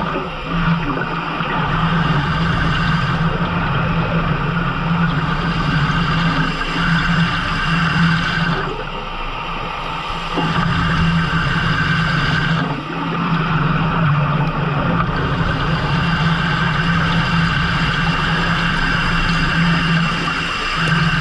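Fishing boat's engine running steadily with a constant low hum, mixed with water noise, easing off briefly twice midway.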